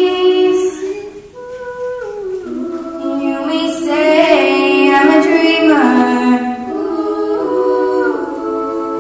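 All-female a cappella group singing in harmony, holding sustained chords. A little over a second in, the voices drop away to one or two held notes, then the harmony builds back up over the next few seconds.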